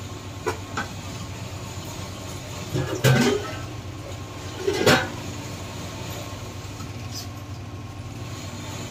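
Thick curry gravy simmering in a kadai, its bubbles bursting in a few loud plops, the two loudest about three and five seconds in, with a couple of faint ticks. Under them runs a steady low hum.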